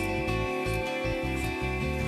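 Instrumental background music, with bass notes changing step by step beneath sustained higher tones.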